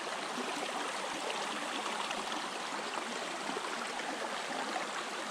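Small mountain stream running and trickling over rocks: a steady, even rush of water.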